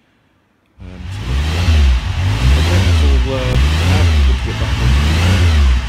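Motorcycle engine being revved again and again, its pitch rising and falling with each blip. It cuts in suddenly about a second in after near silence.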